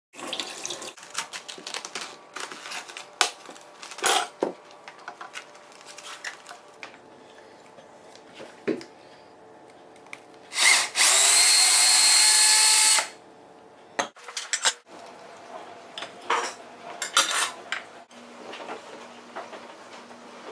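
Cordless drill with a hole saw boring out a cabbage core: it runs steadily for about two seconds near the middle. Before and after, cabbage leaves crackle and rustle in short bursts as they are handled and pulled off the head.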